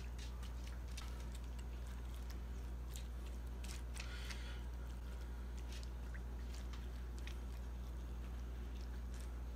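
Faint soft dabbing and light ticks of a silicone basting brush dipping into a bowl of melted butter and brushing it over cauliflower pieces, over a steady low hum.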